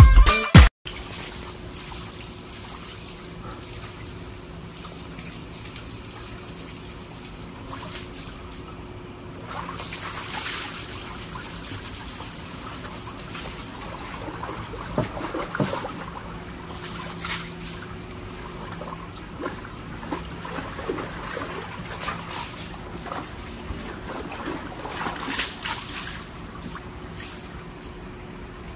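Water sloshing and trickling in a plastic tub as a husky sitting in it shifts about, with a few small splashes.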